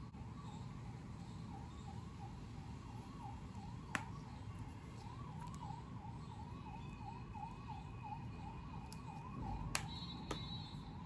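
Faint siren yelping, its pitch sweeping up and down about three times a second. A few sharp clicks are heard about four seconds in and again near the end.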